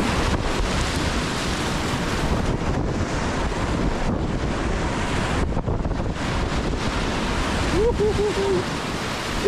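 Whitewater rushing and churning around a kayak running through a rapid, with wind buffeting the microphone. The roar is steady, briefly thinning about five and a half seconds in.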